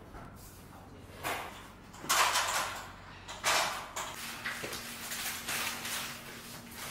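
Stainless steel kitchen equipment being moved and fitted: several short sliding, scraping noises, busier in the second half, with a steady low hum starting about four seconds in.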